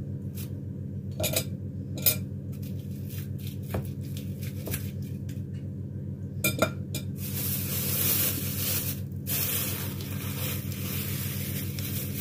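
Dishes and kitchen utensils clinking and knocking in scattered strikes, then a steady hiss from about seven seconds in, over a constant low hum.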